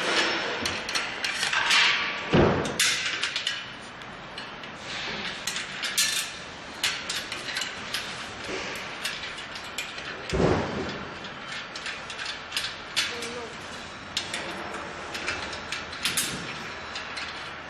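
Rapid clicking and rattling of hand tools and metal fittings as screws are put into a solar water heater's metal frame, with two heavier thuds, about two and a half seconds in and again about ten seconds in.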